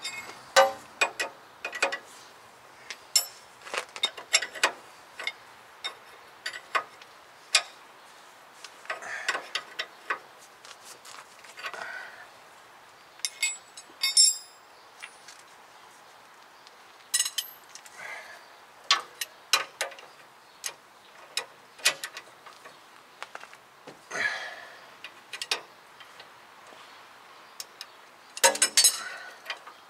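Ratchet wrench clicking in short, irregular runs as the nut on a new upper ball joint's stud is tightened down, with scattered metallic clinks of the socket and tools between.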